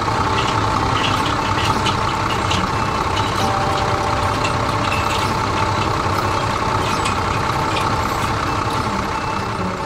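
Tractor engine sound effect, running steadily with light clattering.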